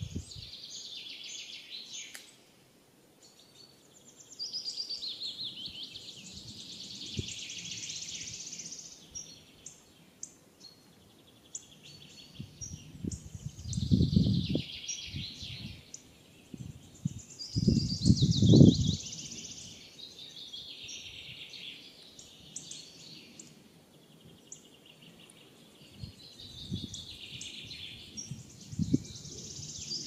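Small birds chirping and twittering in quick high-pitched runs that come in bouts every few seconds, several of them sliding down in pitch. A few low rumbling bursts break in, the loudest about two thirds of the way through.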